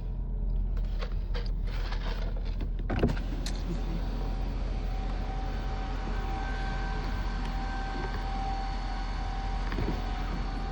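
Outdoor tornado warning siren sounding a steady tone that swells and fades a little, over a constant low hum. A single sharp knock comes about three seconds in.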